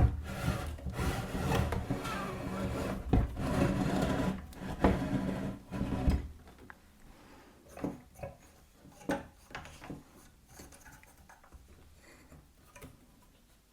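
Metal parts of a benchtop pillar drill being shifted and turned on the column, rubbing and scraping for about six seconds, then a few light knocks and clicks as the parts are handled.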